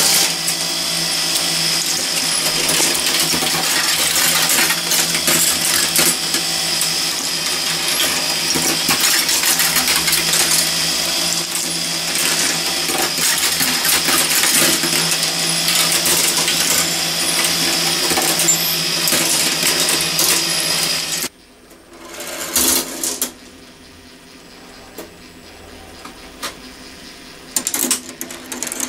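Meccano marble machine running: glass marbles clicking and rattling against the metal strips and plates of its lift and tracks, over a steady mechanical hum. About two-thirds of the way through the hum and dense clatter stop abruptly, leaving fainter, scattered marble clicks that grow busier again near the end.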